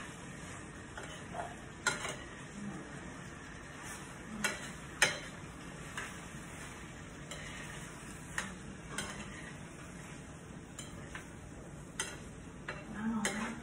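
Metal utensil stirring a creamy chicken and vegetable filling in a skillet on the stove over a steady low sizzle, with sharp clinks of the utensil against the pan now and then, the loudest about five seconds in.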